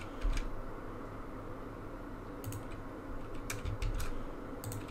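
A few scattered computer keyboard key presses and mouse clicks over a steady low background noise.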